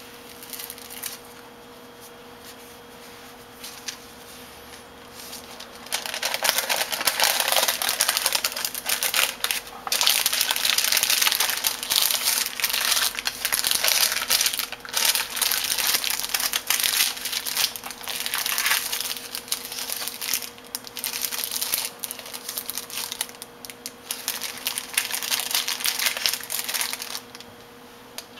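Thin paper crinkling and rustling as it is folded and rolled around a tortilla wrap. It is fairly quiet for the first several seconds, then loud, busy crinkling from about six seconds in until just before the end.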